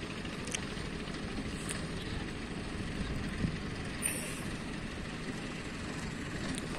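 Mahindra tractor's diesel engine pulling a loaded sugarcane trailer over rough ground, a steady low rumble heard from a distance. A brief high squeal comes about four seconds in.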